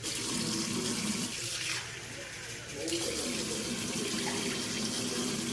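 Water running from a tap into a cup, starting abruptly, with a short lighter spell about two seconds in.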